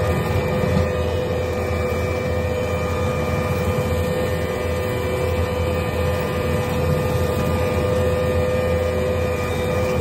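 Case skid steer's engine running steadily under load while the hydraulic motor of a Kubota SC4072 brush cutter spins its blade through grass: a continuous drone with a constant whine over it.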